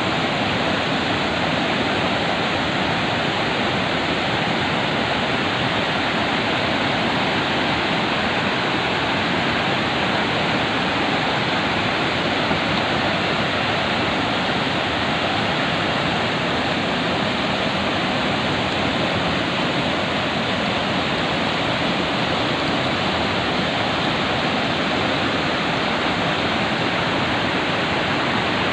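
Steady rush of river white water, an even noise with no breaks.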